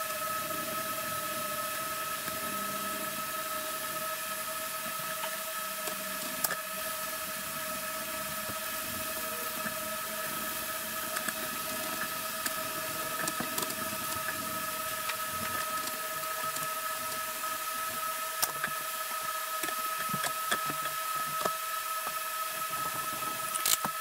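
Steady hiss with an even, high-pitched hum, under scattered light clicks that come more often in the second half.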